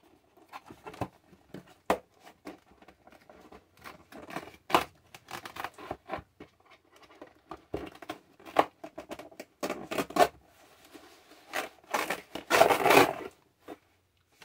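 Cardboard doll box being torn open along its perforated tear tab, with a string of short rips, scrapes and crackles. The longest and loudest rip comes near the end.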